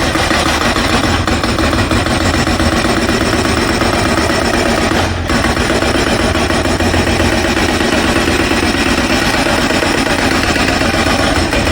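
Jackhammer (pneumatic breaker) hammering continuously and loudly as it breaks up the ground, with a brief break in the hammering about five seconds in.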